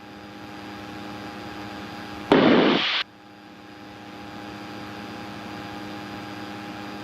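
Steady drone of a light aircraft's engine and propeller heard through the cockpit intercom. About two seconds in, a short loud burst of radio static cuts in and stops abruptly.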